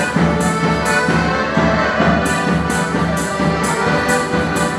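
Live Polish folk band (kapela) playing dance music, led by accordions holding sustained chords, with a crisp high beat about twice a second.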